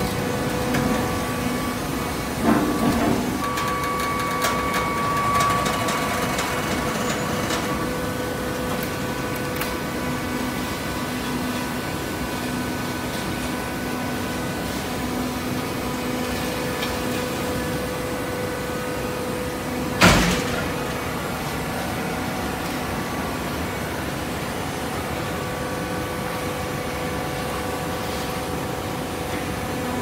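Hydraulic shredded-paper baler running: a steady machine hum with several held tones, and one sharp bang about twenty seconds in.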